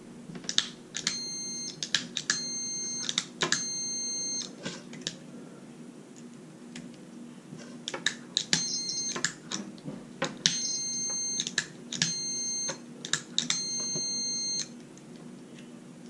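Multimeter continuity beeper sounding in broken stretches of under a second each, three, a pause of about four seconds, then four more, as the test probes sit on the terminals of a removed RV electric-stabilizer retract/extend switch, with sharp clicks of the switch and probes. The beep cutting in and out shows continuity through the switch coming and going, the intermittent fault of a dirty, failing switch.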